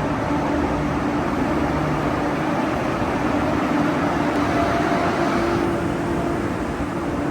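Passenger train running: a steady rumble with a low, even hum.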